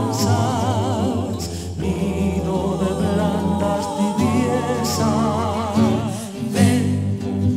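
Mixed vocal group of men and women singing a zamba in close harmony, the upper voices wavering with vibrato over steady low notes.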